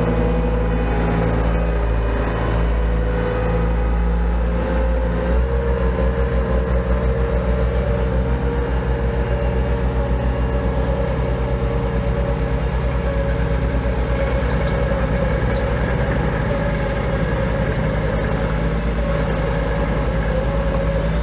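Compact construction equipment engines running steadily: a skid steer and a small tracked mini loader. From about five seconds in there is a low, regular throb.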